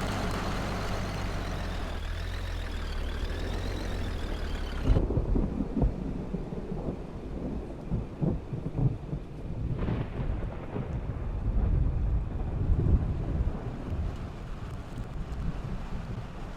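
A vehicle running down the road, its steady road noise carrying a faint wavering whine. About five seconds in it cuts to gusty storm wind buffeting the microphone, an uneven low rumble.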